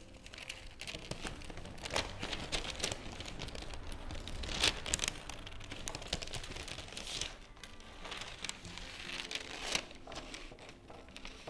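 Scissors cutting through thin pattern paper in a run of irregular snips, the sheet rustling and crinkling as it is handled and turned; the sharpest snip comes about halfway through.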